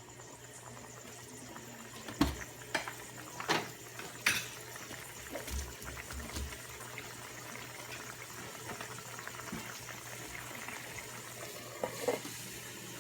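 Chicken wings simmering in a pan of watery sauce, a faint steady bubbling, with a few sharp pops or clicks between about two and four seconds in and again near the end. The liquid is still cooking down while the chicken softens.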